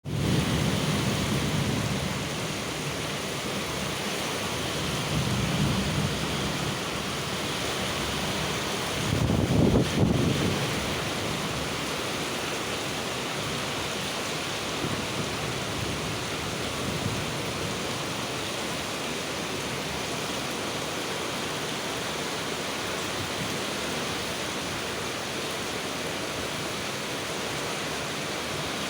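Heavy tropical downpour, a steady hiss of rain throughout, with low rumbles of thunder swelling in a few times, the loudest about ten seconds in.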